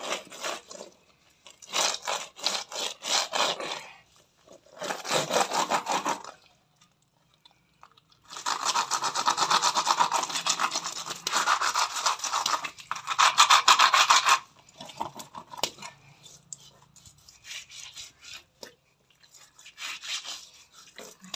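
A whole murrel (snakehead) fish rubbed hard back and forth against a rough floor, a rasping scrape in quick strokes, scouring the slime off its skin. It comes in several bouts, the longest in the middle, with fainter strokes near the end.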